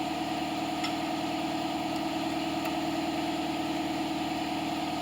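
Steady machinery hum with a few fixed tones and a slow low pulsing underneath; a faint tick about a second in.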